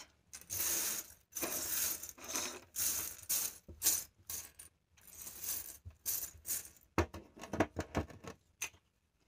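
Jingle shells clinking and rattling as a hand sweeps and stirs through a loose pile of them on a tabletop, with a few sharper knocks near the end.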